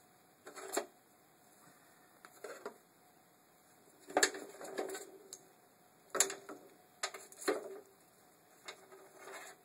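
Irregular clicks, knocks and short rattles of a window regulator's plastic cable drum housing and cables being unclipped and handled on a metal door carrier plate, the sharpest clicks about four and six seconds in.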